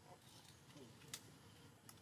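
Near silence, broken by two faint sharp clicks, a little over a second in and again near the end.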